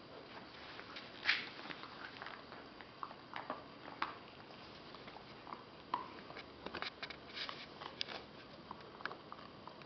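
Alaskan Malamute puppy chewing and nibbling at the edge of a rug: faint, irregular little clicks and scratches, with a sharper click about a second in.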